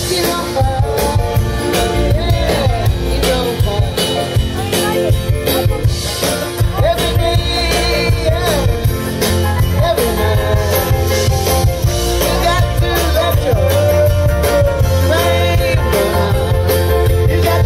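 Live band playing an upbeat song: a man sings over acoustic guitar, bass and drums, with a steady beat throughout.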